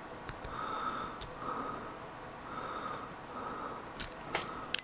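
Breathing through the nose, a soft hiss repeating about once a second. Near the end come a few sharp clicks from a lock pick and tension wrench working in a corroded padlock.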